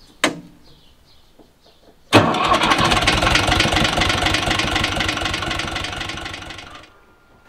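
UTB 445 tractor's four-cylinder diesel engine starting suddenly about two seconds in, then running with a fast, even beat that fades away near the end.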